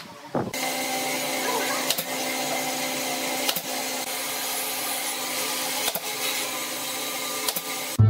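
A workshop power tool running steadily with an even whir and hum, with a few sharp clicks along the way; a few quick knocks come just before it starts, about half a second in.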